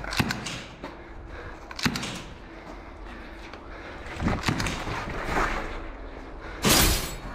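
Airsoft players moving through a derelict concrete building: single sharp knocks, a cluster of them about four seconds in, and a louder, longer crack near the end.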